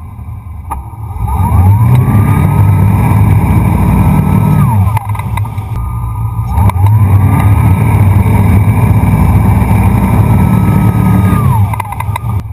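Wakeboard boat's engine throttling up, running steadily at speed, and throttling back about five seconds in. It opens up again about seven seconds in and eases off near the end: the boat accelerating to pull a wakeboarder up out of the water.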